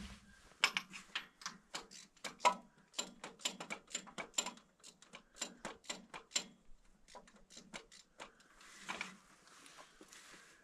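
Socket ratchet clicking in quick repeated strokes, about three or four clicks a second, while working a tractor's spark plug. A short pause, a few more clicks, then a brief rustle near the end.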